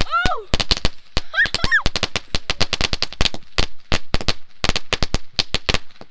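A string of firecrackers going off in a rapid, irregular run of sharp bangs, several a second.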